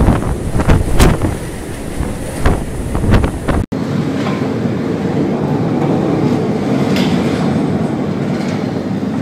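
Storm wind and heavy sea buffeting a ship, with wind noise on the microphone and sharp crashes of waves or spray. About three and a half seconds in, an abrupt cut leads to a steady, even rumbling noise.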